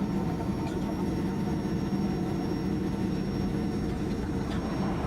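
Airbus A319's jet engines running at steady low power as it taxis: an even rumble with a faint high, steady whine.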